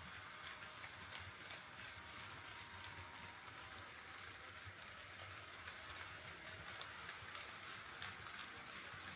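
HO scale model train running on KATO Unitrack: a faint, steady rolling hiss with a low motor hum and many small, irregular clicks from the wheels passing over the rail joints.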